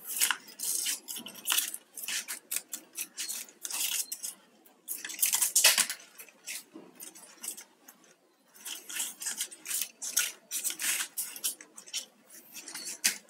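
Plastic craft wire strands rustling and clicking against each other as hands work and pull knots in a bundle of wires. Quick, irregular crackles, loudest a little past the middle, with a short lull near the end.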